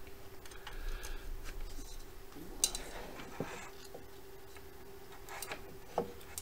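Scattered small clicks and handling noises as test leads and cables are connected on an electronics workbench, the sharpest click a little under three seconds in, over a faint steady hum.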